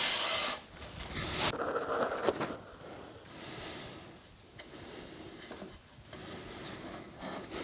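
A thin MDF strip scraping along MDF board as it is pushed into place by hand: a short loud scrape right at the start, then softer rubbing and handling over the next couple of seconds.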